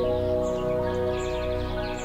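Background music of sustained, held chords, with a new chord coming in at the start.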